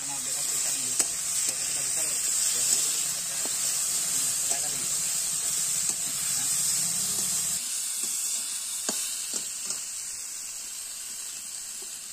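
Food sizzling as it fries in oil in a steel kadai over a wood fire, stirred with a metal spatula that gives a few sharp clicks and scrapes against the pan. The sizzle is a steady hiss that eases slightly in the second half.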